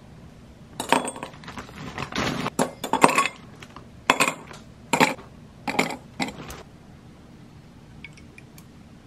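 Ice cubes dropped into a glass tumbler with metal tongs, clinking against the glass and each other in a run of sharp clinks over the first seven seconds. A few faint ticks follow near the end.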